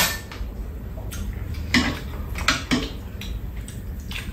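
Chopsticks and spoons clinking against ceramic bowls and a metal serving tray during a meal: a few separate sharp clinks.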